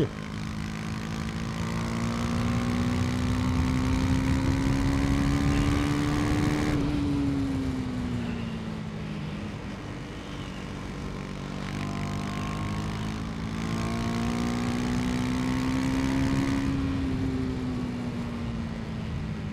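KTM 250 Duke's single-cylinder engine pulling under acceleration, its pitch climbing steadily for about six seconds, then falling away as the revs drop. The same slow rise and fall comes again in the second half.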